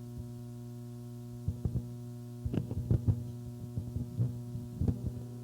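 Steady low hum from the sound system, a single low tone with overtones, broken by scattered soft thumps and knocks.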